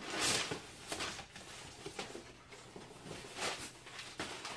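Rustling and scraping of cardboard and paper as a shipping box is opened and its contents handled, in a few short swells, the loudest at the start.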